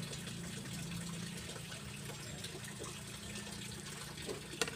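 Water running steadily while a fish is washed and handled in a basin, with one sharp knock near the end.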